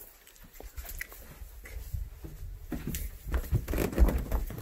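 Footsteps and handling noise as a person walks along a carpeted hallway and then down carpeted stairs, carrying the recording phone. Light scattered taps come first, then heavier low thuds of the steps on the stairs for the last second or so.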